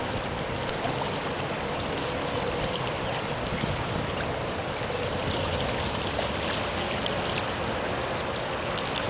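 Steady rushing of fast-moving floodwater, an even noise with no breaks.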